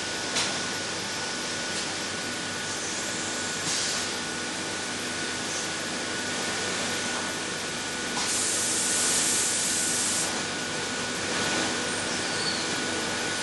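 Pneumatic valve grinder running on a large marine exhaust valve: a steady compressed-air hiss with a faint steady whine. There are short louder spurts of air near the start and at about four seconds, and a louder, sharper hiss from about eight to ten seconds in.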